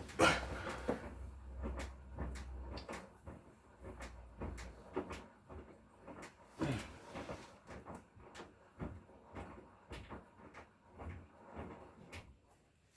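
Hotpoint Core washing machine with an inverter motor: a low hum dies away in the first few seconds, followed by irregular knocks and clunks.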